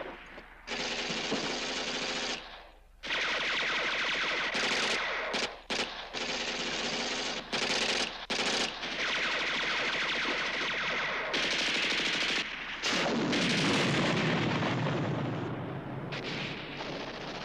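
Machine-gun fire in long bursts with short breaks between them. A deeper rumble comes in for a few seconds a little past the middle.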